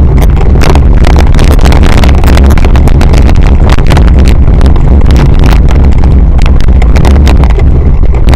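Loud steady wind rumble on the camera's microphone while riding a cyclocross bike over a rough dirt course, with a fast irregular rattle of clicks and knocks from the bike and camera jolting over the bumps.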